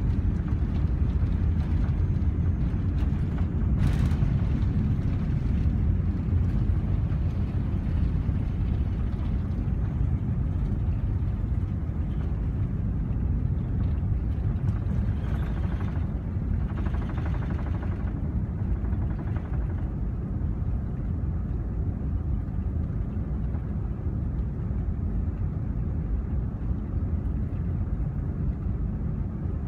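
Airbus A380 cabin noise while climbing out after takeoff: a steady, deep rumble from the four engines and the airflow that eases slowly. A brief click about four seconds in.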